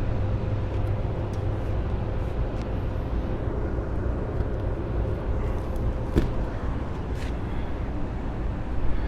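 Steady low rumble of outdoor background noise, with a faint steady hum that fades out about two-thirds of the way through and a light tick about six seconds in.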